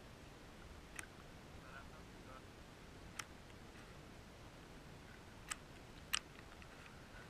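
Faint steady hiss with four sharp, separate clicks a second or two apart, picked up by a GoPro held at the water's surface.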